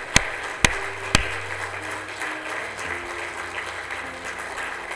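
A person's slow, steady handclaps, about two a second, ending after three claps about a second in, over light scattered applause and soft sustained keyboard chords.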